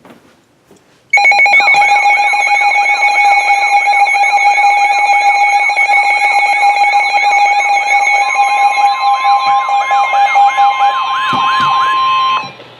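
Weather alert radio sounding its warbling alarm for a severe thunderstorm warning: steady beeping tones under a siren-like sweep that rises and falls about two to three times a second. The NOAA Weather Radio's steady single-pitch warning tone joins about two-thirds of the way through, and both cut off just before the spoken alert.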